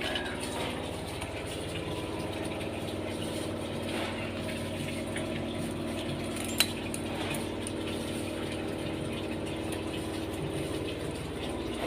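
Washing machine motor running steadily with an even hum, and one sharp click about six and a half seconds in.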